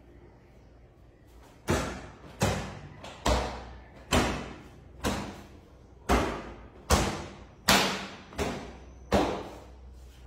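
A cloth being whacked against wooden bed slats to dust them: about ten sharp slaps, roughly one a second, starting nearly two seconds in, each dying away quickly.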